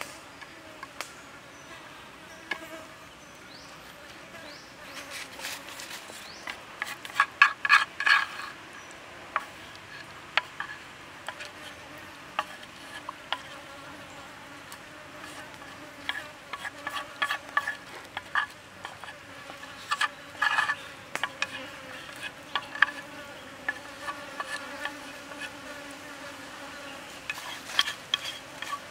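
Steady buzzing of insects, with clusters of sharp clicks and taps of chopsticks against a pan and plate as food is plated, about a quarter of the way in, through the middle and again near the end.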